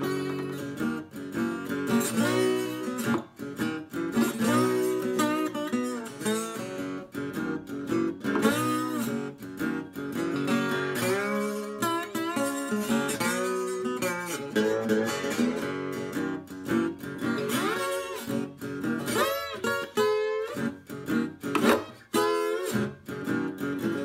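Old German parlor acoustic guitar played bottleneck blues style with a metal slide: fingerpicked notes whose pitch glides up and down under the slide.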